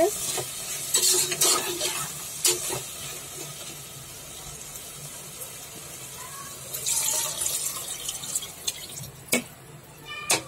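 Water poured into a pressure cooker of kidney beans fried in masala, splashing and sizzling on the hot pan in the first couple of seconds and again briefly later, with a few sharp clinks of a spoon against the pot.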